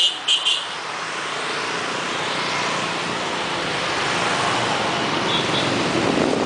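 Steady street traffic noise from passing motorbikes, with two short high beeps right at the start and another about five seconds in.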